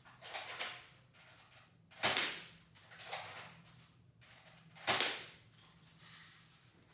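Spring-powered airsoft M16 rifle firing two sharp shots about three seconds apart, with softer clacks before each.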